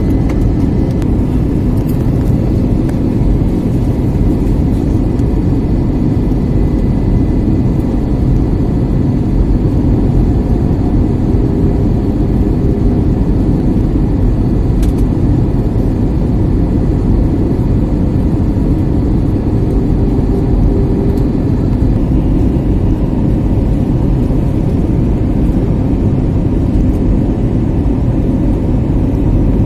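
Steady cabin noise of an Airbus A320-family jet airliner on its descent to land: the low, even rush of the turbofan engines and the airflow past the fuselage, with a faint steady high whine on top.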